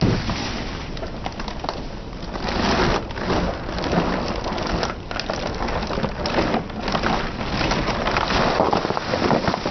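Plastic juice bottles crackling and crunching as a car tyre rolls over and crushes them: a dense run of small cracks and pops with louder swells as each bottle gives way.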